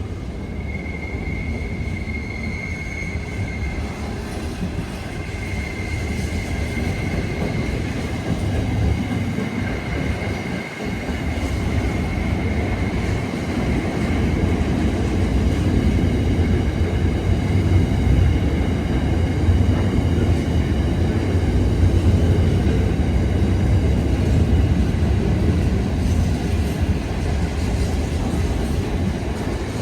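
Long freight train's wagons rolling past: a steady rumble of steel wheels on the rails, with a faint high-pitched wheel squeal in the first several seconds. The rumble grows louder about halfway through.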